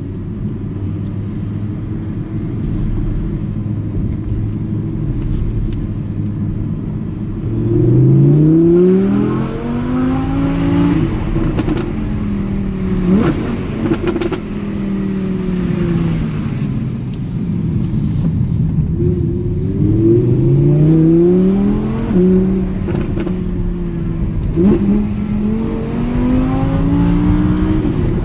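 Audi R8 V10 Plus's 5.2-litre naturally aspirated V10 running steadily at first, then revving up hard about eight seconds in. Sharp cracks come at the gear changes, then the revs ease off before climbing again twice in the second half.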